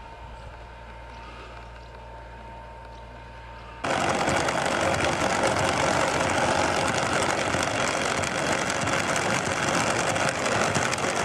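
A quiet low engine hum, then, about four seconds in, an abrupt cut to a much louder, dense, rapid mechanical clatter of a machine's engine running hard.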